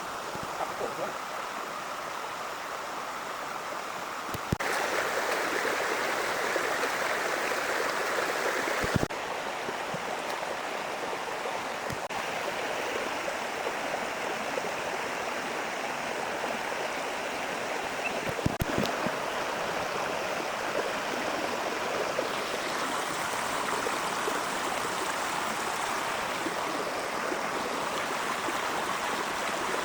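Heavy rain falling steadily, a dense even hiss with a few sharp ticks of single drops; its level and tone jump abruptly about four and a half and nine seconds in.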